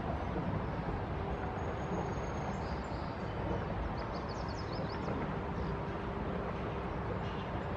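Steady city background rumble, mostly low and even, with a faint steady hum through it. A few faint high chirps come briefly about four seconds in.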